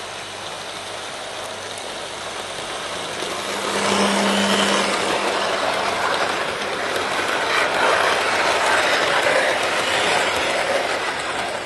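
Hornby OO gauge model Class 67 locomotive and its coaches running on the track. A steady mechanical rumble of motor and wheels swells as the train closes in about four seconds in, then stays loud while the coaches roll past.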